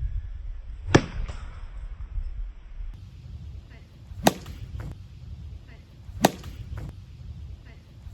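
Baseball bat striking a ball off a batting tee: three sharp cracks about two to three seconds apart, each followed by a fainter knock about half a second later.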